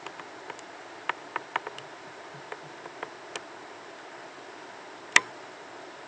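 Small stepped waterfall rushing steadily. Over it come a scatter of sharp clicks during the first three and a half seconds and one louder click about five seconds in.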